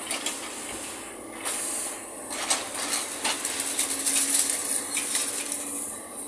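Wheeled excavator's orange-peel grapple gripping a bale of crushed scrap metal and lifting it off a stack: metal scraping, rattling and clattering, densest and loudest in the middle, over the machine's steady engine hum and a steady high hiss.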